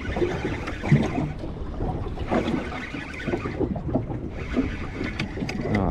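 Wind buffeting the microphone over water sloshing around a small fishing boat at sea, a steady rumbling noise with gusts of hiss.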